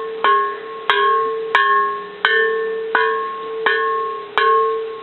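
Old bronze Japanese Buddhist temple bell with an internal crack, struck seven times at an even pace of about one stroke every 0.7 s. Each stroke rings on and overlaps the next.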